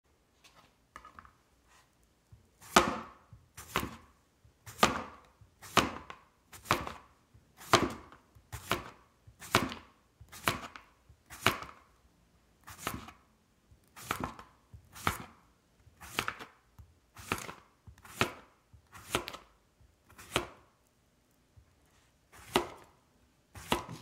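Chef's knife slicing a whole cucumber into rounds on a plastic cutting board: a crisp cut ending in a knock of the blade on the board, about one slice a second, steady throughout. A few faint handling knocks come before the first slice.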